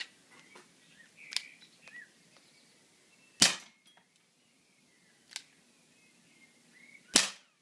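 Pistol firing two sharp shots about four seconds apart, each with a lighter click about two seconds before it.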